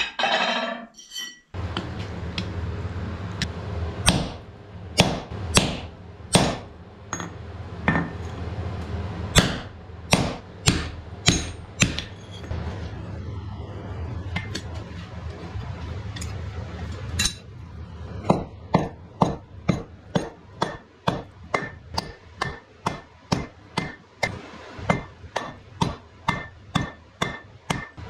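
Hammer blows on hot wrought iron held on a steel anvil, each blow ringing briefly. The blows come scattered at about one a second at first, then as a steady run of about two a second in the second half, over a steady low hum.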